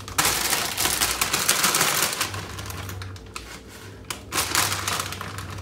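A plastic package of fresh baby spinach crinkling and rustling as the leaves are dumped into a stainless cooking pot, in dense rapid crackles that ease off after about two seconds and pick up again briefly near the end.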